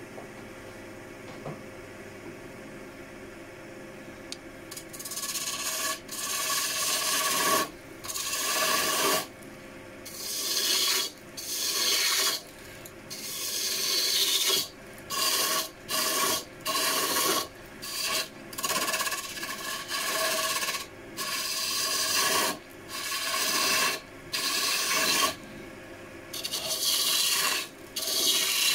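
Wood lathe spinning a wooden club blank with a steady motor hum. About five seconds in, a turning gouge starts cutting, and it goes on as a long series of rough, hissing scrapes, each a second or two long, as shavings peel off the spinning wood.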